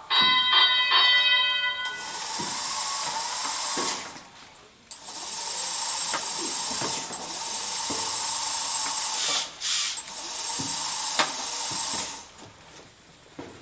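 An electronic match-signal tone sounds for about two seconds. It is followed by an FTC competition robot's electric motors whirring steadily for about ten seconds, which stop near the end.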